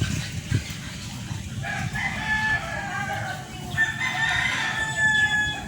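A rooster crowing twice, each crow a long drawn-out call, over a steady low hum.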